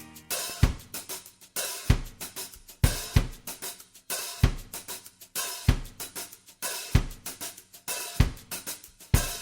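Background music: a drum kit playing a steady beat of kick drum, snare and hi-hat.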